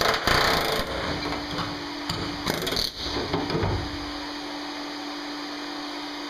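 Pneumatic air chisel hammering through a van's sheet-steel floor, loud and rattling for about the first three seconds before it stops. A steady low hum carries on underneath.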